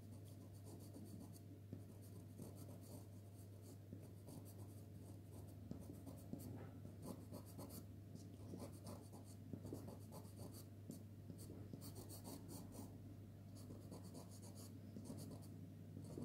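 Faint scratching of a pastel pencil on pastel card: quick, irregular short strokes as red is worked into a drawing, over a steady low hum.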